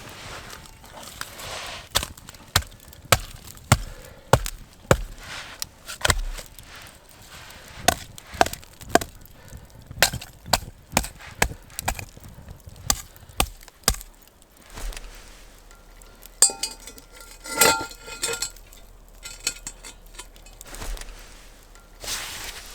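A blade chopping into wood, with sharp strikes at about two a second that stop about two-thirds of the way through. Later comes a short run of metallic clinks that ring briefly.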